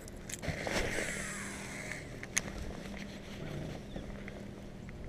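Steady low hum of a boat's motor, with a brief rushing sound about a second in and scattered clicks and knocks, one sharp click about halfway through.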